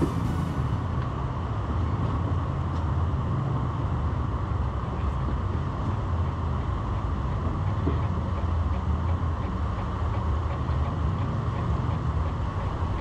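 Jeep driving slowly through a shallow creek: a steady low engine rumble with tyre and water noise.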